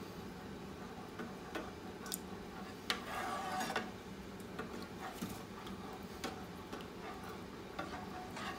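A utensil stirring gravy thickened with cornflour in a speckled enamel pan, giving irregular light clicks and scrapes against the pan, a little busier about three seconds in.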